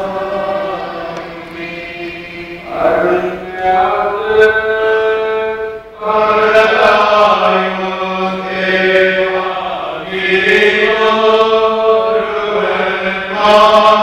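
Slow Mar Thoma liturgical chant sung in long held notes that glide from one pitch to the next, with a steady low tone underneath.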